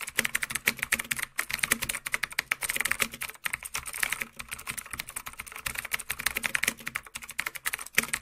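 Keyboard typing sound effect: a rapid, uneven run of key clicks that goes on without a break.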